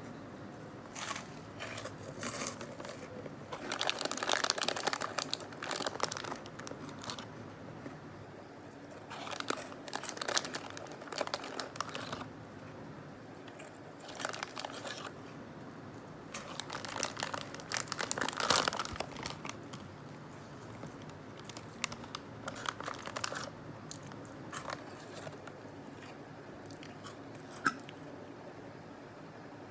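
Crunchy star-shaped onion-flavoured snack pieces being bitten and chewed close to the microphone, in bouts of crackly crunching separated by short pauses, with one sharp click near the end.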